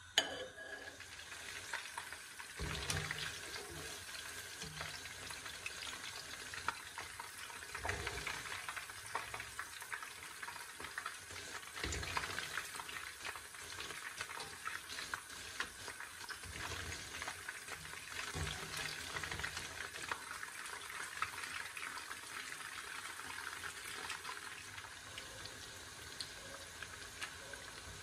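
Battered chicken pieces deep-frying in hot oil: a steady sizzle with dense crackling. Now and then a low knock as the wire spider skimmer moves the pieces in the pan.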